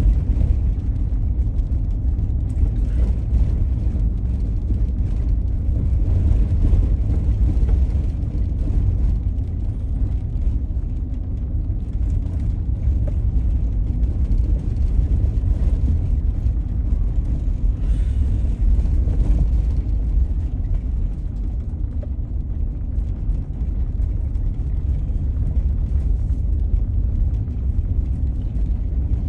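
Car driving slowly along a town street, heard from inside the cabin: a steady low rumble of engine and tyre noise.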